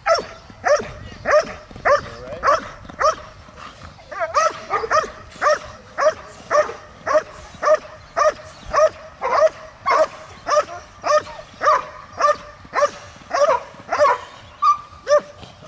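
A Belgian Malinois barking repeatedly while on the leash, about two barks a second with a brief pause about three seconds in. It is agitation barking at a helper during leg-sleeve bite training.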